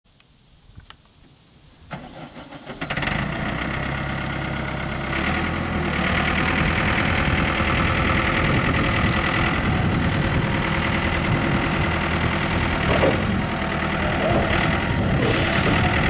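Mustang 2109 skid steer loader's engine cranking briefly and starting about three seconds in, then running steadily and speeding up about five seconds in as the hydraulic loader arms lift the bucket. A few short clanks or squeaks sound near the end.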